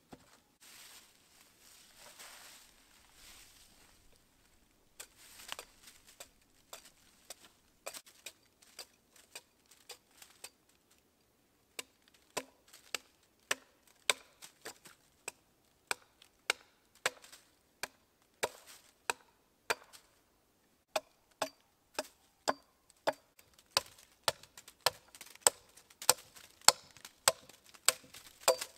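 A small 600 g Urnieta forest axe chopping and hewing a split slab of wood on a stump: sharp, separate blows that start sparse, then come about one to two a second, getting louder towards the end. Soft rustling as the wood is set down in the first few seconds.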